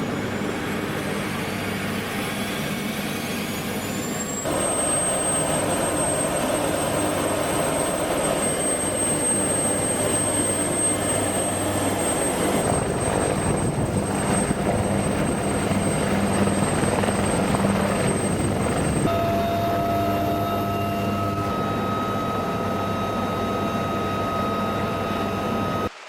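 Helicopter turbine and rotor running, a steady high whine over a continuous engine and rotor noise, with rising whines in the first few seconds. The sound changes abruptly three times, as if from one take to the next.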